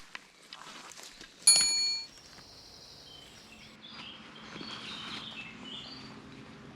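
A single sharp ringing metallic strike about a second and a half in, then birds calling in short high notes.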